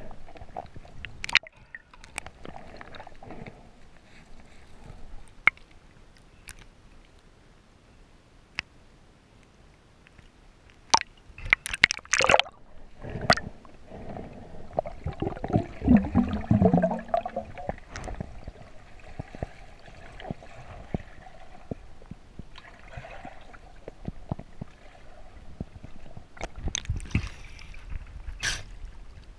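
Lake water sloshing and gurgling around an underwater camera as a freediver moves between the surface and the bottom, with scattered sharp clicks and knocks. There is a loud rush of water about twelve seconds in and a louder, deeper gurgling a few seconds later.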